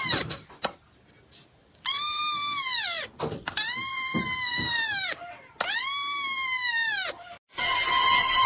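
A cat yowling: three long, drawn-out meows, each rising and then falling in pitch. A steady held tone starts near the end.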